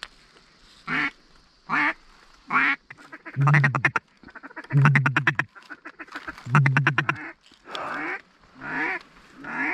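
Mallard ducks quacking: a few single quacks, then three bursts of rapid, chattering chuckle calls, then more single quacks.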